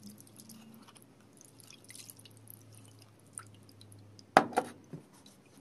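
Water poured from a drinking glass into a glass baking dish of cola, trickling and dripping faintly. About four seconds in come a quick pair of sharp knocks and a softer one just after.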